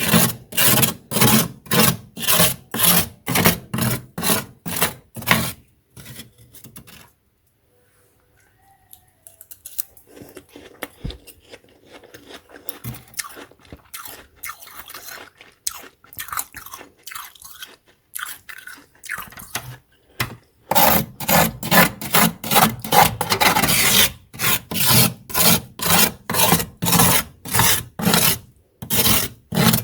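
Frost in a freezer being scraped in quick, even rasping strokes, about two a second. The strokes stop about six seconds in, a quieter stretch of irregular scraping and crunching follows, and the rhythmic scraping comes back about twenty seconds in.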